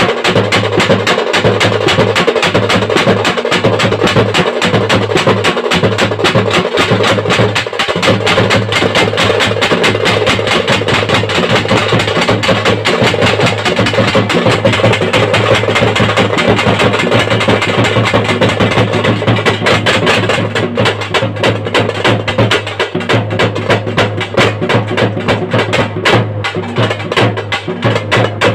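Group drumming: fast, dense stick strokes on small hand-held drums over the beats of a large bass drum. The playing becomes sparser in the last several seconds.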